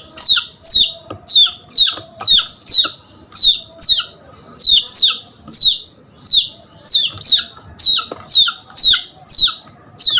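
Red junglefowl chick peeping in distress, a steady run of short, high peeps about two a second, each falling in pitch: a lost chick calling for its hen, used as a lure call for hunting jungle fowl.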